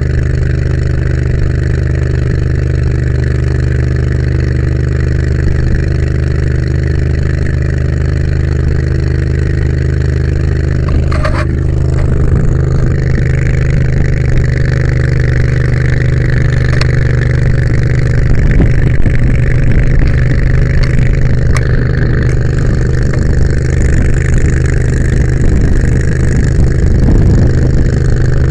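Engine on a brush fire truck running steadily at a constant speed, a deep even hum. A rushing noise joins it about halfway through.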